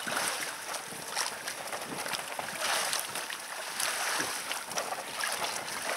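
Water splashing and sloshing as a bather dunks himself in an ice hole, in a few uneven surges.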